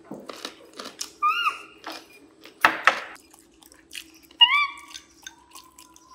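Spoon and fork clinking and scraping in a ceramic rice bowl as a baby macaque eats, with a louder scrape about three seconds in. Two short high squeaks come between the clinks, one just over a second in and one about four and a half seconds in, over a faint steady hum.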